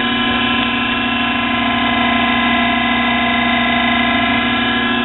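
Nano lathe running at a steady speed, its spindle belt-driven by a larger replacement electric motor: an even motor hum and whine of several steady tones.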